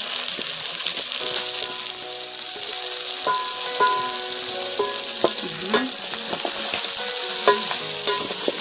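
Pieces of pork frying in their own rendered fat with onions, garlic and ginger, a steady sizzle, while the mix is stirred with the spoon knocking against the pot now and then.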